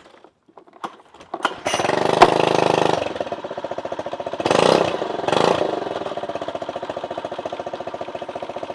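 Small air-cooled outboard motor started for a quick test run: a few faint clicks, then the engine catches about a second and a half in and runs fast, revs up briefly twice, and settles to a steady idle.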